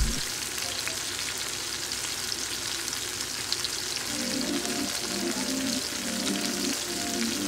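Seasoned raw chicken breasts frying in hot oil in a skillet: a steady sizzle with fine crackles and pops. Faint background music comes in about halfway through.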